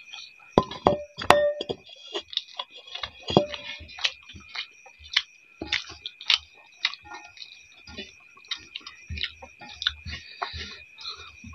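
Two people eating rice with their hands from steel plates: irregular clicks and smacks of chewing and of fingers tapping and scraping the metal plates, over a steady high-pitched whine.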